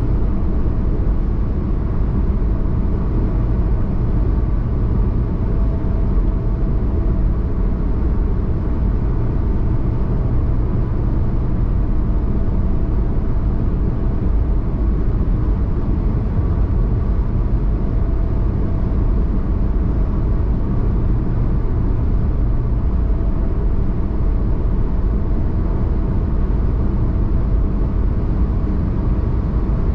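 Steady road and engine noise heard inside a car cruising on a highway: an even low rumble with a faint hum above it.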